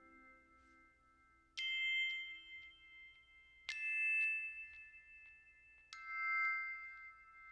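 Music: three struck bell-like chime tones about two seconds apart, each ringing out and fading, as a lower sustained tone dies away in the first second or two.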